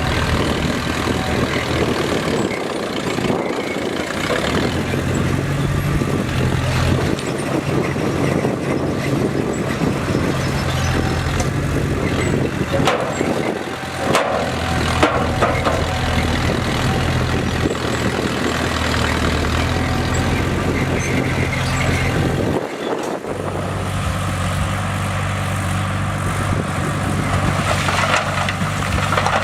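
Bulldozer's heavy diesel engine running steadily, with scattered knocks over it. The engine note drops away briefly about 23 seconds in, then comes back.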